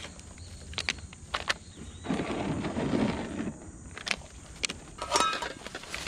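Camp cooking gear being handled and set down: several sharp clicks and knocks, a rustle of bags about two seconds in, and a skillet placed on a portable gas stove. A brief squeak comes near the end.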